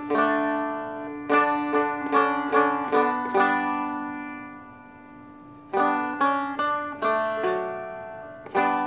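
A Seagull Merlin M4, a four-string dulcimer-style instrument, is flatpicked: a melody of single picked notes over a ringing drone string. Partway through, one note is left to ring and fade for about two seconds before the picking starts again.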